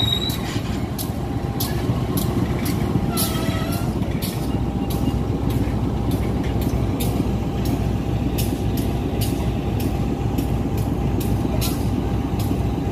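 KAI diesel-electric locomotive's engine running as it hauls passenger carriages slowly through the yard, a steady low rumble, with regular sharp clicks throughout and a brief higher pitched sound about three seconds in.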